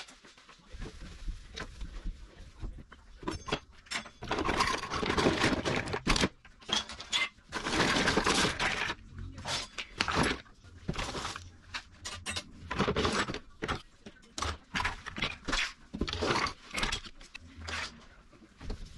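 Kitchen utensils and small plastic cups clattering and scraping as a drawer is emptied by hand: a run of quick knocks, with denser rattling about four seconds in and again around eight seconds.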